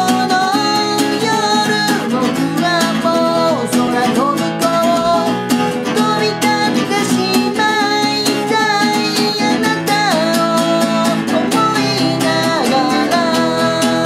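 A man singing in Japanese while strumming an acoustic guitar in a steady, driving rhythm.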